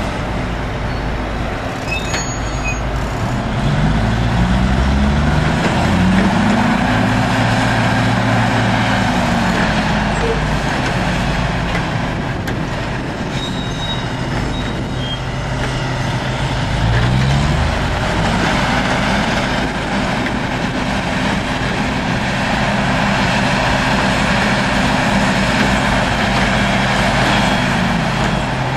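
Heavy diesel machinery running during a mining-truck tyre change, its engine pitch rising and falling slowly twice as it revs, over a steady mechanical rushing noise.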